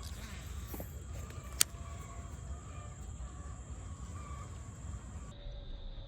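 Outdoor ambience: a steady low rumble with faint bird calls, and one sharp click about a second and a half in.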